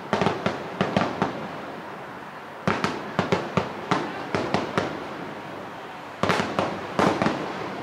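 Aerial firework shells bursting in three quick volleys of sharp bangs: one at the start, one about three seconds in, and one near the end.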